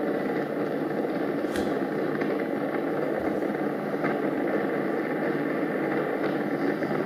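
Steady, loud roar of a burning natural gas pipeline rupture, mixed with road noise from a moving vehicle, with a few faint clicks.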